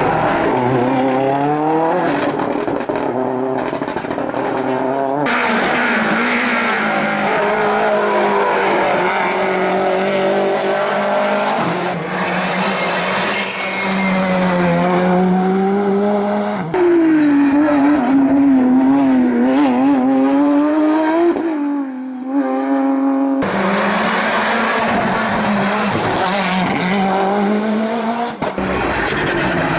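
Competition cars' engines revving hard up and down through the gears as they climb and pass, several cars one after another, with brief tyre squeal.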